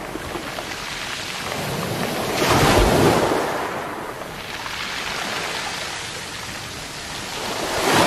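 Waves breaking on a beach of small round black pebbles, the pebbles rattling and rolling as the water washes up and draws back. A loud surge comes about three seconds in, and another wave builds near the end.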